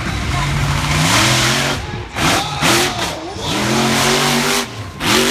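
Monster truck engine revving hard, its pitch climbing and dropping several times over a loud exhaust roar.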